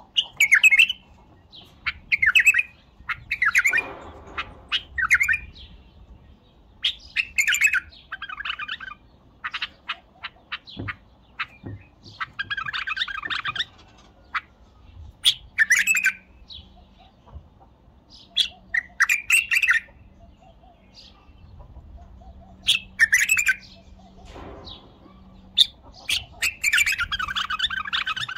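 White-eared bulbul singing: short, loud song phrases repeated every second or two, with longer phrases around the middle and near the end, and sharp clicks between them.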